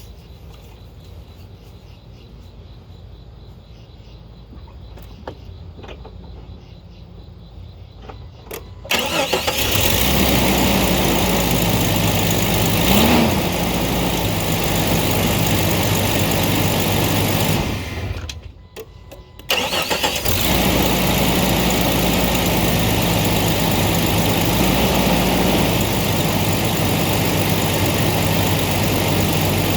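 1998 Jeep Cherokee XJ engine started cold about nine seconds in and idling with one brief rev, shut off a little past halfway and restarted about a second later, then idling steadily. A rattle-clunk is meant to be heard as it starts and stops, the fault the owner is trying to trace.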